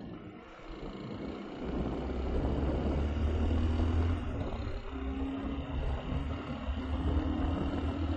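Bajaj Pulsar 150 motorcycle engine running at road speed, with wind and road noise on the camera's mic. The rumble gets louder about a second and a half in as the bike speeds up.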